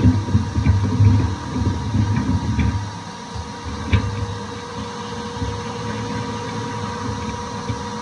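20-litre Wickes wet-and-dry vacuum running steadily with a constant whine, its hose at a radiator valve nut being cracked open. A few metal clicks from the grips on the brass nut, the sharpest about four seconds in.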